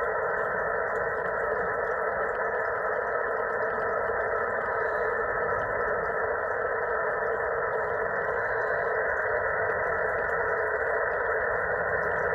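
Steady receiver static hiss from a Xiegu G90 transceiver's speaker, tuned to an empty CB channel between transmissions. The hiss is held to a narrow, tinny mid-range band by the radio's filter.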